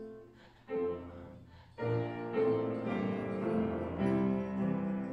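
Piano playing: two separate chords about a second apart, then from about two seconds in a steady run of full, sustained chords.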